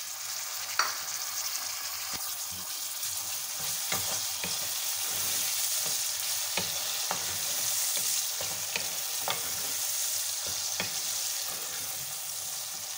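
Chopped tomatoes sizzling in hot oil with browned onions and ginger-garlic paste in an aluminium kadhai, a steady hiss. A wooden spoon stirs them, knocking and scraping against the pan now and then, the sharpest knock about a second in.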